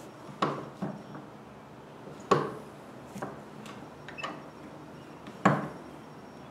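Gunshots on a rifle range: two louder cracks, about two and a half and five and a half seconds in, each with a short echo, and fainter shots between them.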